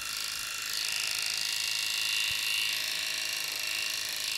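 Electric pet clippers with a 2 mm blade running steadily as they shave through a cat's dense, felted mats, a constant high-pitched buzz that grows slightly louder about a second in.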